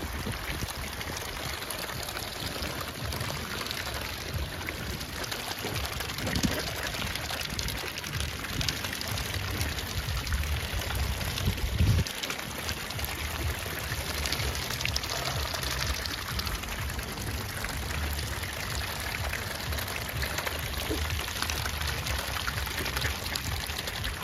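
Water splashing and sloshing as a dense crowd of mute swans feed at the surface, dipping their bills and jostling.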